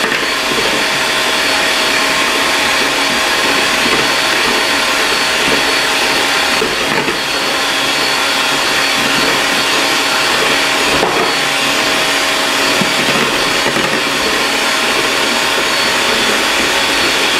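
Electric hand mixer running steadily, its beaters whisking egg yolks and sugar in a glass bowl.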